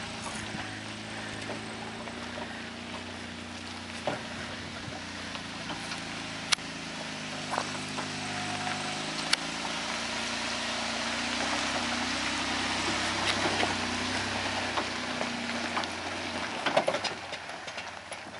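Toyota Land Cruiser 80-series engine running at low revs as the truck crawls over rock towing a trailer, its pitch rising and falling with the throttle. It grows louder as the truck passes close and fades as it drives away. A few sharp clicks and knocks are heard, most of them near the end.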